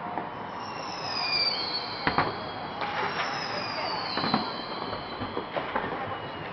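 Fireworks going off: two long whistles that fall in pitch, and several sharp bangs from bursting shells.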